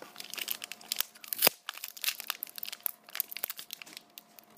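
Wrapper of a hockey trading card pack crinkling and tearing as the pack is opened, with a sharp crack about one and a half seconds in.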